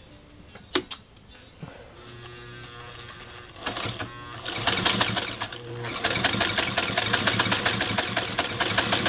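Singer 99K sewing machine stitching through leather: its motor starts humming about two seconds in, and from about five seconds the machine runs steadily with a rapid, even clatter of needle strokes.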